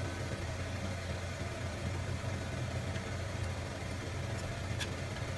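Shredded potato balls sizzling in hot oil in a frying pan, an even frying hiss over a low steady hum, with a light click near the end.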